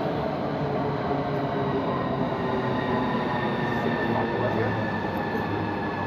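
Electric passenger train running past on the rails, a steady rumble with a whine made of several held tones, the highest one dropping slightly in pitch.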